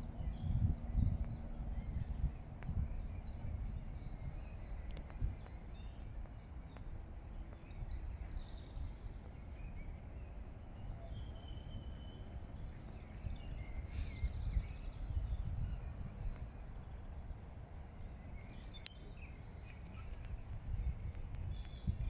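Outdoor ambience: a gusty low rumble of wind on the microphone, with birds chirping and singing briefly now and then.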